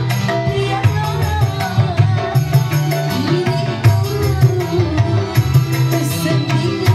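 Live dangdut band: a woman singing into a microphone over an electronic keyboard and tabla-like hand drums, at a steady beat.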